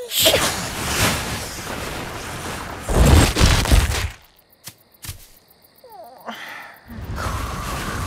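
Cartoon sound effects: a long, loud rushing whoosh, heaviest just before it cuts off suddenly about four seconds in, then a few sharp clicks and another rush of noise near the end.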